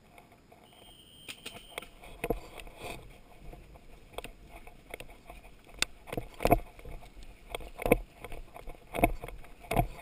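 Running footsteps through grass and brush, with gear and the paintball marker knocking and swishing against the player's body and head-mounted camera. Irregular thuds start about a second in and get louder and heavier from about halfway through.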